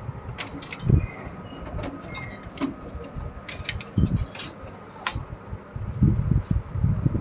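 Scattered clicks and low knocks of hands handling a desktop PC's power cables and plugging the ATX 4-pin and 24-pin connectors into the motherboard.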